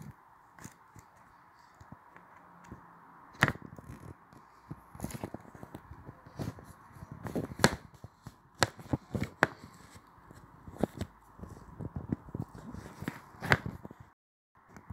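Irregular taps and knocks of fingers on a smartphone's touchscreen and body, picked up by the phone's own microphone over a steady low hiss. The sound cuts out briefly near the end.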